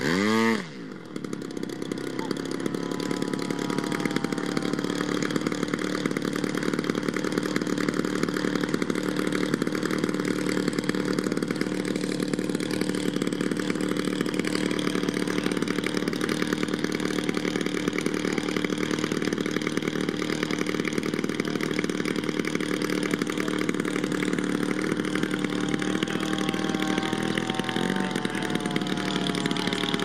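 GP-123 gasoline engine of a Mamba 120 giant-scale RC biplane, revved sharply up and down in the first second, then settling to a steady idle. Near the end its pitch begins to shift as the plane starts to taxi.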